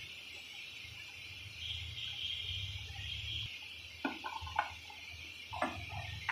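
A few light metallic clinks of steel transmission gears being handled and set onto the shafts of a Swaraj 742 XT tractor gearbox: a quick cluster of three clinks about two-thirds in and one more near the end. A steady low hum and hiss lie under them.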